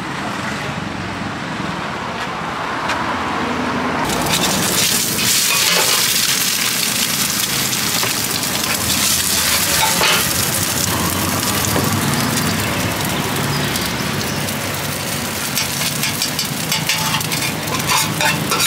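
An egg frying in oil in a large shallow iron pan over a gas burner, sizzling steadily from about four seconds in, with metal utensils clicking and scraping against the pan now and then, more often near the end. Before the sizzle starts, steady street traffic noise.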